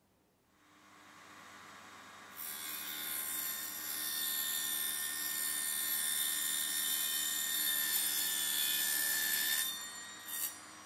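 Small benchtop table saw motor starting and running up to speed, then its blade cutting through aluminium square tube with a loud, harsh, high-pitched cutting noise that lasts about seven seconds. A brief second burst of cutting follows near the end while the saw keeps running.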